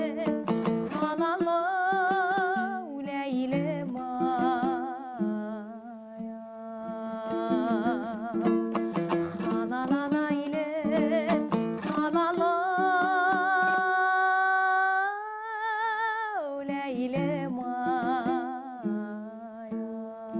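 A singer performing a song with strong vibrato, accompanied by a plucked string instrument; the voice holds one long note about twelve seconds in, then drops back down.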